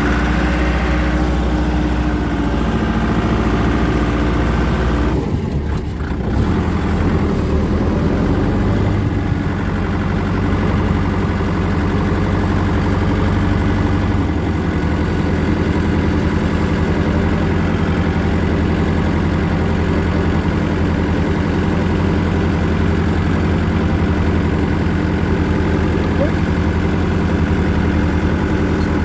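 Small tractor's engine running steadily as it drives along the road, heard from the driver's seat. The engine note dips briefly about five seconds in, then settles and runs on steadily.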